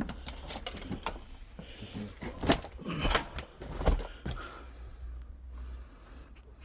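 Footsteps crunching and knocking on debris in a small derelict room: a run of irregular clicks and cracks, with the sharpest knocks about two and a half and four seconds in.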